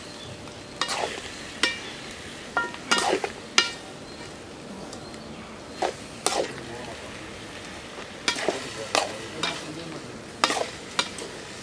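Metal spatula scraping and clinking against a metal kadai as mutton pieces, onions and green chillies are stirred in hot sesame oil, over a steady sizzle of frying. The strokes come irregularly, about a dozen in all, a few of them ringing briefly.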